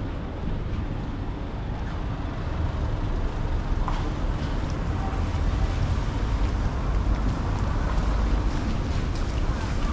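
Outdoor street ambience: a steady low rumble that gets a little louder about two and a half seconds in.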